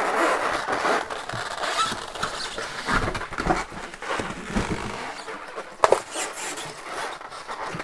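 Styrofoam packing blocks squeaking and scraping against a cardboard box as a heavy machine is lifted out of it. A sharp knock comes about six seconds in.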